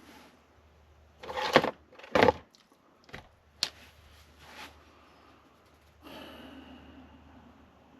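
Hardware being handled: two loud knocks with a clatter, then a few sharp clicks, and about six seconds in a softer scraping rustle, as computer fan and case parts are worked.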